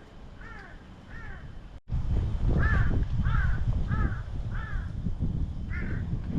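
A crow cawing over and over, short harsh calls about one every two-thirds of a second, fainter at first and louder after about two seconds. A low rumble like wind on the microphone comes in with the louder calls.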